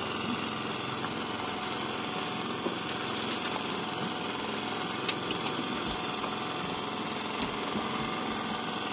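Small engine on an outrigger fishing boat running steadily, an even mechanical drone, with a few faint clicks.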